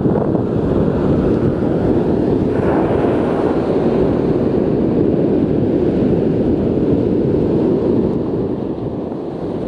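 Wind buffeting the microphone over ocean surf breaking and washing up the beach: a steady, loud rush.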